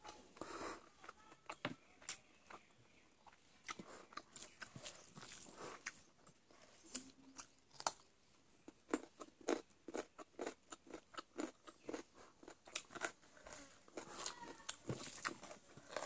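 A person chewing and biting into cooked chicken close to the microphone: irregular mouth clicks, smacks and crunches, coming several times a second through most of the stretch.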